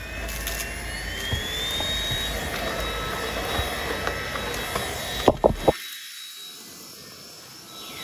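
Tefal X-Force Flex cordless stick vacuum running over a wooden floor, with a whine that rises in pitch near the start and then holds steady. A few sharp knocks come about five seconds in, after which the low rumble suddenly drops away.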